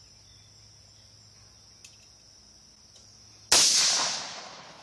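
A single pistol shot about three and a half seconds in, loud and sudden, its report dying away over about a second. Before it, only a steady high-pitched hum.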